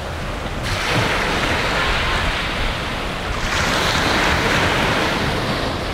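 Sea water washing and sloshing around people in the shallows, with wind noise on the microphone; the hiss steps up suddenly under a second in and swells again in the middle.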